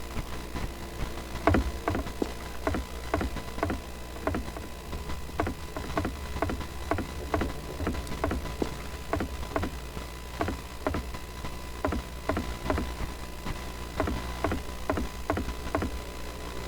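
Regular short knocks or clicks, about two to three a second, over a steady low mechanical hum; the knocks start about a second and a half in.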